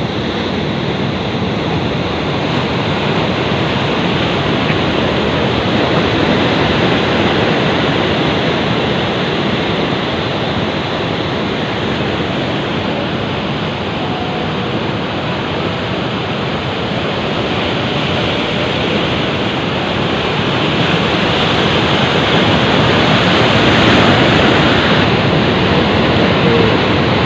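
Steady rushing noise of wind and sea waves at a breakwater, even and unbroken, growing a little louder near the end.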